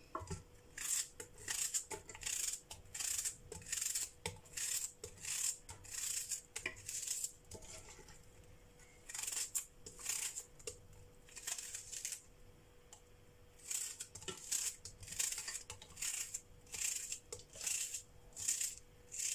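Raw white onion being cut into pieces over a pot: a short, crisp crunch with each cut, about one to two a second, with a couple of brief pauses.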